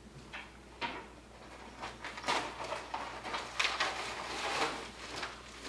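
Plastic bag being handled and opened: irregular crinkling and rustling with a few sharp clicks, busiest and loudest in the second half.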